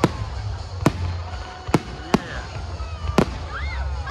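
Fireworks exploding in a display: a series of sharp bangs, roughly one a second, over a low steady rumble.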